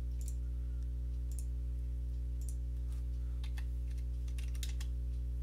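Scattered computer mouse clicks and keyboard keystrokes over a steady low electrical hum.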